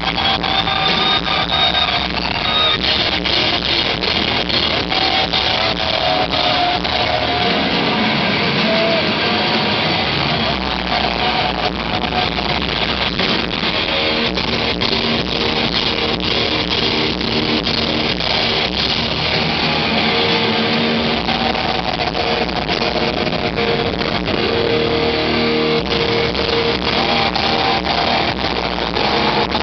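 Hard rock band playing live, with electric guitar to the fore over a steady drum beat.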